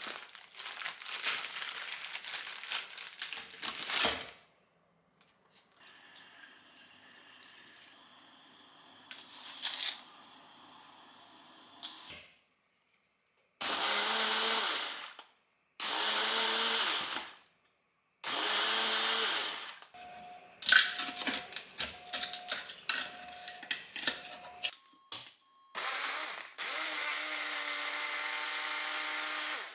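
A small electric kitchen appliance motor, like a blender, run in three short pulses of about a second and a half each. Then come four short electronic beeps about a second apart, and the motor runs steadily near the end. Kitchen clattering comes before the pulses.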